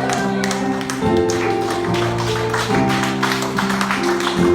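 Church praise music: sustained chords changing every second or so over a steady percussive beat.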